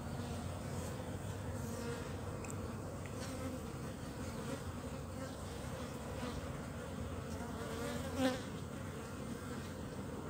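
Asian honeybees buzzing steadily. About eight seconds in, one bee passes close by and the buzz briefly swells and bends in pitch.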